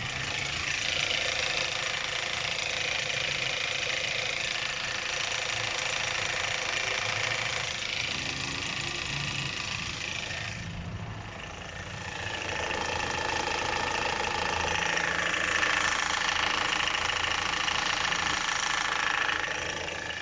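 Chevrolet Captiva 2010's 2.4-litre engine idling, heard close up from underneath, with a light knocking from the timing-chain set, as if a part were loose inside. The shop puts it down to the timing chains, tensioners and guides, which need replacing. The sound fades briefly about halfway through and then comes back.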